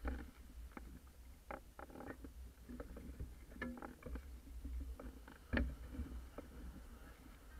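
Scattered clicks and knocks from a beached Paper Tiger catamaran's rigging and deck fittings being handled at the mast, the loudest about three-quarters of the way through, over wind rumbling on the microphone.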